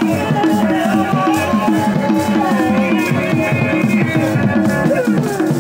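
Church song: group singing with a hand drum and rattles keeping a quick, steady beat.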